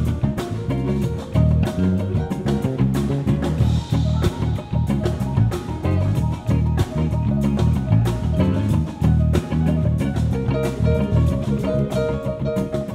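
Live band music: a Fender electric bass playing a busy groove, loud in the mix, over drum kit and keyboards.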